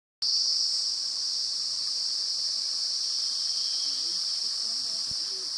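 Steady, high-pitched drone of a rainforest insect chorus, with the faint rush of a shallow stream underneath.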